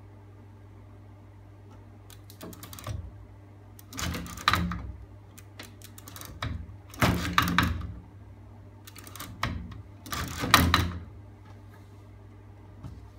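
Roller chain and sprockets of a magnet-crank rig rattling and clicking in about four bursts as the crank with its stacked neodymium magnets turns, over a steady low hum.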